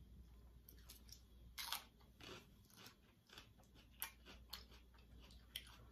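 Faint close-up chewing and crunching of food, with a few sharper crunches scattered through.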